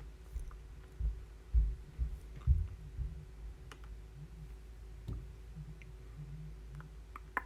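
Scattered computer keyboard and mouse clicks, with a few dull low thumps between one and three seconds in.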